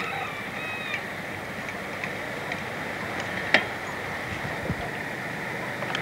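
Steady outdoor background noise on an old camcorder recording. Short high tones sound in the first second, scattered clicks follow, and a sharp click comes about three and a half seconds in.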